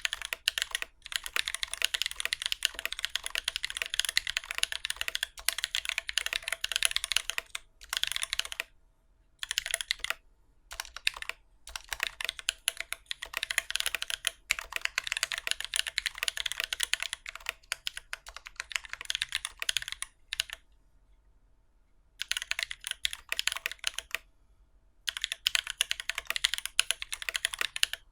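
Typing on a Keycult No.2 mechanical keyboard with lubed Holy Panda tactile switches, a brass plate and GMK keycaps: dense runs of sharp keystroke clicks, broken by brief pauses and by a longer one about twenty seconds in.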